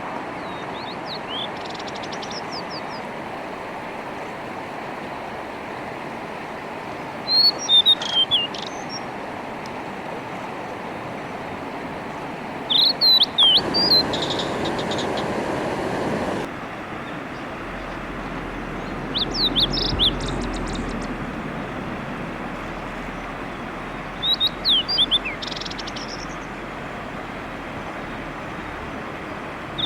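Blue-and-white flycatcher singing: about five short phrases of clear, gliding whistles every five to six seconds. Under it runs the steady rush of a mountain stream, louder for a few seconds about midway.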